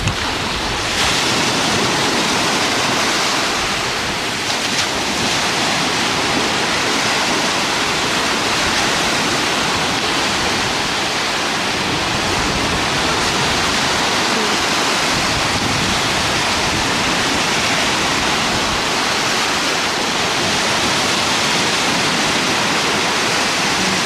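Sea surf breaking and washing onto the shore: a steady, loud rushing of water.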